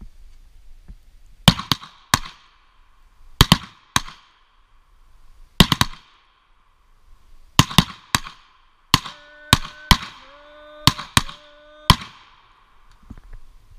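Handgun shots, a revolver among them, in quick groups of two or three for about ten seconds, each crack trailing a short echo. A faint ringing tone lies under the last few shots.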